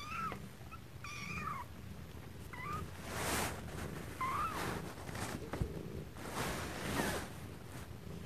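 Three-week-old kittens mewing in short, high squeaks, about four times in the first half, with bursts of rustling as they scramble on a towel over a low steady rumble.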